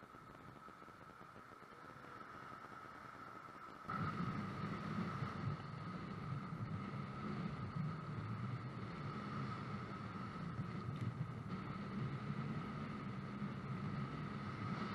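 Strong wind buffeting the microphone over rough surf breaking along the shore in a storm surge. It gets suddenly louder about four seconds in. A steady thin whine runs underneath.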